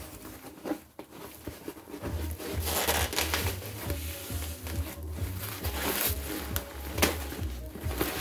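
White foam packing sheet crinkling and rustling in irregular bursts as it is pulled off a boxed speaker, with background music carrying a steady bass beat.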